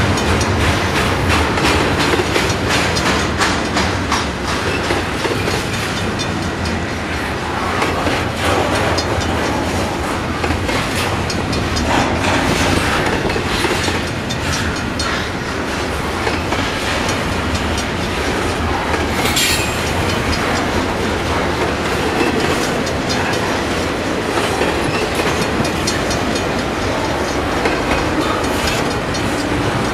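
Double-stack intermodal container train's well cars rolling past: a steady rumble of steel wheels on rail with rapid clickety-clack over the rail joints, and one brief high screech about two-thirds of the way in.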